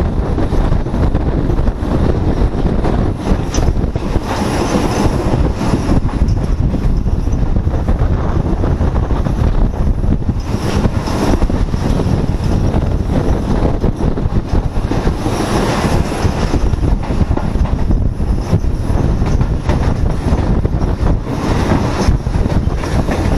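Passenger train running at speed, heard at an open carriage door: a loud, steady rumble of wheels on the rails mixed with rushing air.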